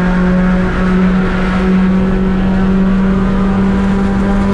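Race car engine running under throttle at an almost steady pitch, with a haze of wind and tyre noise underneath.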